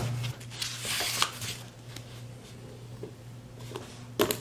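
Paperback book pages being turned and handled: papery rustles in the first second and a half and again near the end, over a faint steady low hum.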